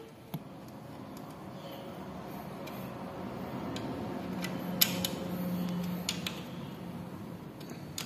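Light metallic clicks and clinks of small motorcycle engine parts being handled by hand at the opened clutch side of the engine, a few sharp clicks with the loudest about five seconds in. A faint steady hum runs underneath and grows louder in the middle.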